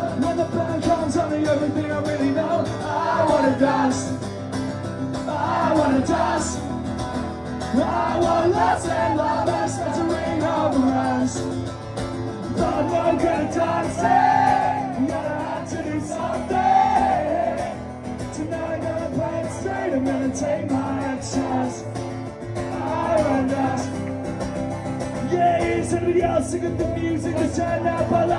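Live performance: a man singing over his own acoustic guitar, amplified through a club PA.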